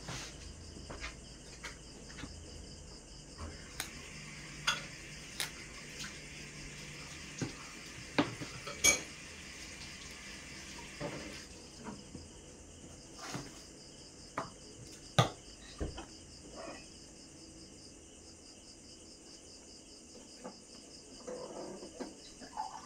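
Steel nail nippers snipping toenail edges: sharp, irregularly spaced clicks and small metallic clinks, about a dozen in all, the loudest about nine and fifteen seconds in, over a faint steady high hiss.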